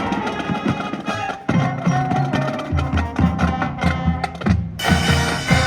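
High school marching band playing, with a steady rhythm of sharp percussion taps over sustained horn lines. Low bass notes join about halfway through, and a bright crash comes near the end.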